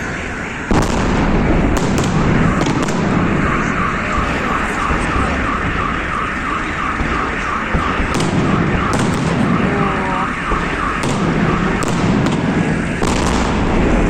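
Fireworks display: shells bursting in scattered bangs, with a car alarm chirping rapidly and repeatedly through most of it.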